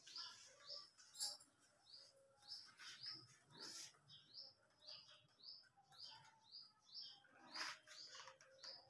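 A small bird chirping over and over, faint: short falling chirps about twice a second, with a few soft knocks among them.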